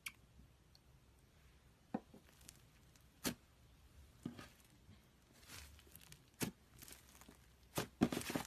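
Slime being worked by hand, giving irregular sharp pops and crackles, with a cluster of them near the end.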